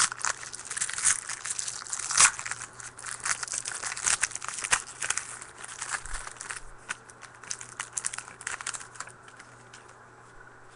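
Foil trading-card pack wrapper crinkling and rustling as it is handled and torn open, with sharp crackles; it dies away about nine seconds in.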